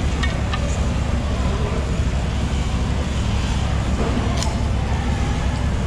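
Steady low rumble of background noise, with a few faint clicks near the start and again about four and a half seconds in.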